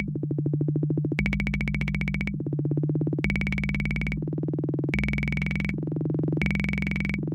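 Univox drum machine playing an electronic pattern: a very fast, buzzing run of ticks over a steady low tone, with a brighter, high-pitched layer cutting in and out in blocks of about a second, roughly every second and a half.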